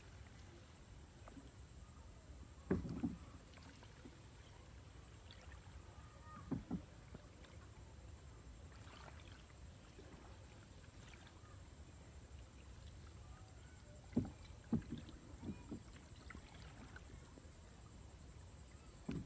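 A small hand-propelled boat moving through shallow floodwater: short knocks and splashes from its strokes come in pairs and small clusters a few seconds apart, over a faint low steady rumble.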